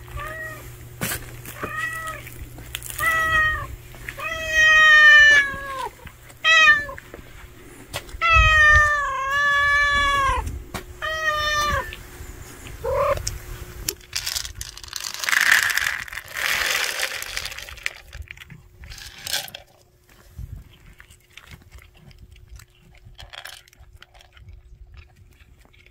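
A hungry stray calico cat meows over and over, about nine calls, some short and some long and drawn out, begging for food. A few seconds of rustling follow, then faint chewing as it eats.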